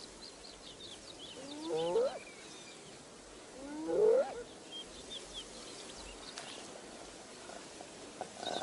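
Spotted hyena whooping: two rising calls about two seconds apart, with faint bird chirps behind.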